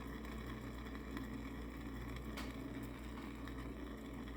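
Quiet room tone: a steady low hum and hiss, with one faint click about halfway through.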